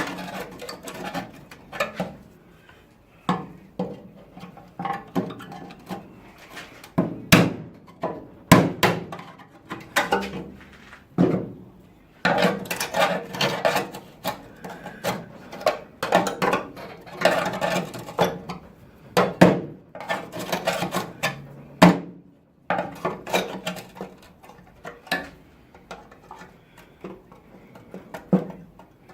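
Irregular knocks, taps and clanks of hand tools on car body steel, with a few harder hammer-like blows and stretches of dense clatter.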